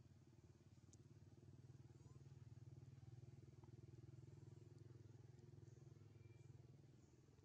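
Faint engine of a passing motor vehicle, a low pulsing hum that grows louder over the first few seconds and fades again near the end.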